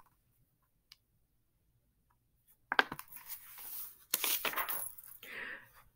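Pages of a hardcover picture book being turned and the book being handled: a sharp tap about halfway through, then a few seconds of paper rustling and scraping.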